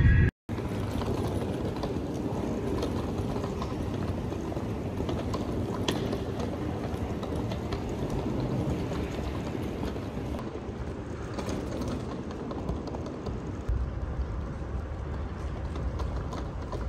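Steady background noise with light, irregular clicks of footsteps on a hard floor.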